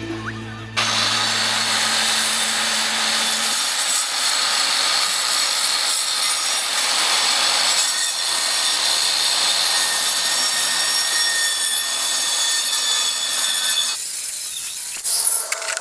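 Circular saw with a worn, cheap blade cutting half-inch cement board: a loud, steady grinding cut that starts about a second in and eases off near the end.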